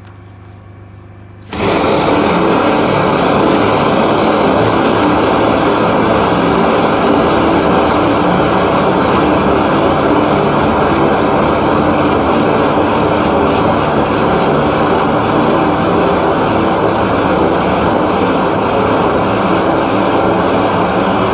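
High-pressure drain-jetting machine running under load. A loud, steady engine-driven noise that cuts in abruptly about a second and a half in.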